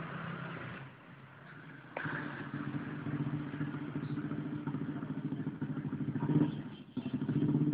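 A small motorcycle engine comes in about two seconds in and runs at a steady, fast-pulsing idle, briefly louder near the end.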